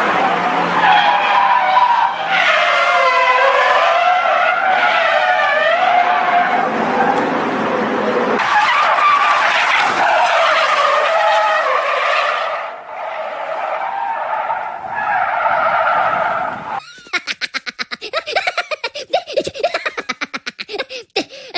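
Car tyres squealing in long, wavering screeches as a car drifts, sliding sideways on the road. About 17 seconds in this gives way to a rapid run of short chattering bursts of cartoon laughter.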